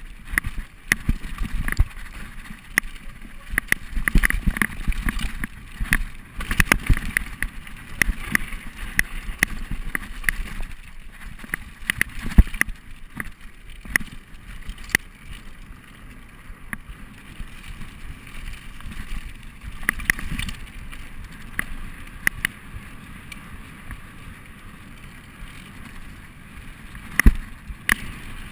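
Mountain bike riding fast down a rough dirt trail: tyre noise on dirt with frequent irregular knocks and rattles as the bike hits bumps, the sharpest about halfway and near the end.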